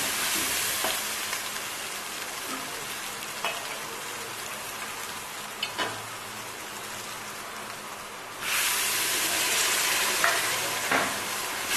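Onion, tomato and spice masala sizzling as it fries in oil in a pressure cooker, stirred with a spatula that knocks against the pot now and then. The sizzle gets suddenly louder about eight seconds in.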